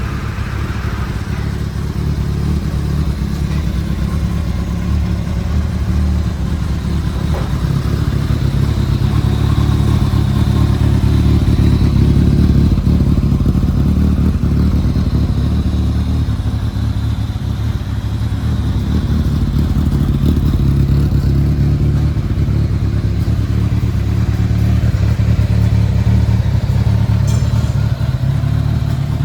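Kawasaki ZRX1100's air-cooled inline-four motorcycle engine running steadily, its note swelling a little around the middle and again near the end.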